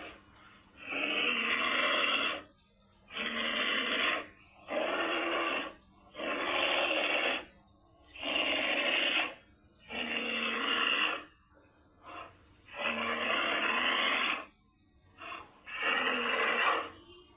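Creature sound effect for a humanoid moray eel: about nine rough, noisy growls, each one to one and a half seconds long, with short pauses between them.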